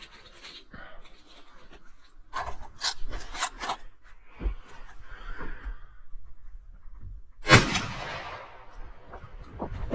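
Rubbing and scraping noises close to the microphone, with several short scratches and one sharp, loud crack about seven and a half seconds in that dies away over about a second.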